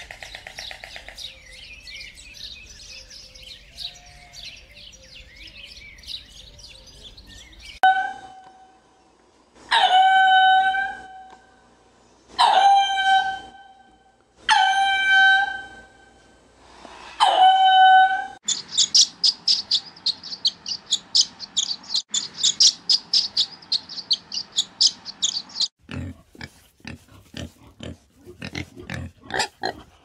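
A run of animal calls. First comes faint high chirping, then five loud, drawn-out wailing calls of a ring-tailed lemur, then a fast string of high, sharp calls. Low grunting from a warthog starts near the end.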